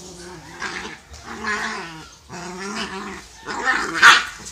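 Dogs growling during a play-fight in a run of short bursts, the loudest near the end. The growls are play, not aggression.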